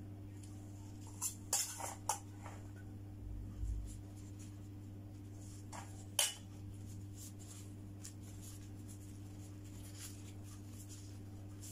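A metal spoon scraping and clinking against a stainless steel bowl, with a quick cluster of clinks a little over a second in and one sharp clink about six seconds in, over a steady low hum.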